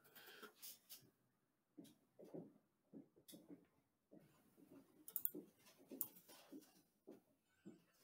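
Near silence with faint, irregular clicks of a computer keyboard and mouse.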